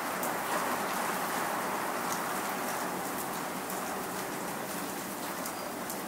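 Rain shower falling steadily: an even hiss of rain with scattered sharper drop hits, easing slightly toward the end.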